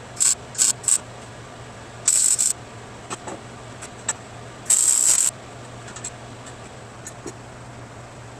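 Wire-feed welder laying tack welds on steel tubing: three quick crackling bursts, then two longer ones of about half a second each. A steady low hum runs underneath.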